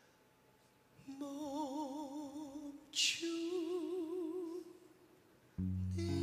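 Male musical-theatre singer holding two long notes with vibrato, the second one higher, with a short sharp hiss between them. Near the end, instrumental music starts suddenly.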